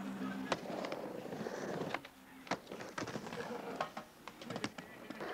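Skateboard on a wooden mini ramp: wheels rolling and several sharp clacks of the board and trucks against the ramp and coping, with the skater slamming onto the ramp in a fall.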